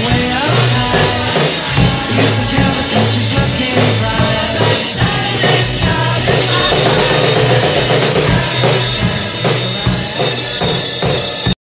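Drum kit with Sabian cymbals played along to a rock song with a steady bass line, hits and cymbal crashes throughout. The music stops suddenly near the end.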